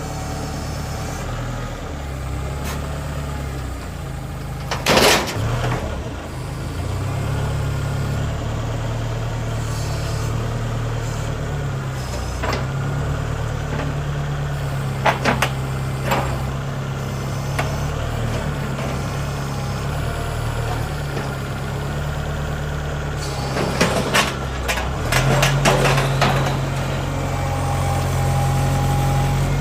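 Tractor engine running, its low steady note rising and falling in level. A few sharp knocks cut across it: one about five seconds in, a couple in the middle and a cluster near the end.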